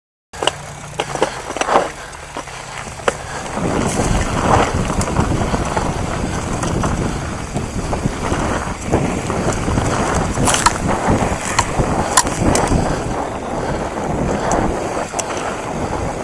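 Enduro mountain bike riding down a dirt trail, heard from a camera on the bike or rider: a few sharp clicks at first, then, about three and a half seconds in, a steady loud rush of wind on the microphone and tyres on dirt, with frequent rattles and knocks from the bike over the rough ground.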